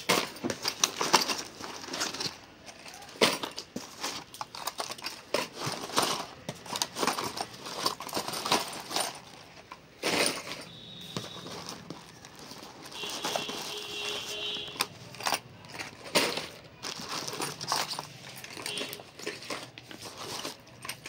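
Hands rummaging in a cardboard box: plastic bags and clear plastic lure boxes crinkling and rustling, with irregular clicks and taps as the boxes knock together.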